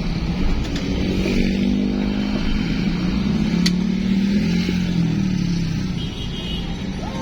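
Vehicle engine running at steady road speed, its pitch rising and falling slightly as the throttle changes, over constant road and wind noise.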